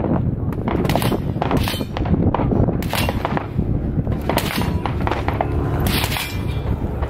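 Scattered rifle and pistol shots from shooters elsewhere on an outdoor range, sharp reports at irregular spacing, some in quick pairs, over steady low background noise.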